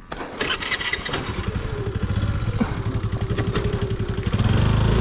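Honda Activa scooter's single-cylinder four-stroke engine starting, then running with a rapid even beat and a steady whine. It gets louder near the end as it is revved.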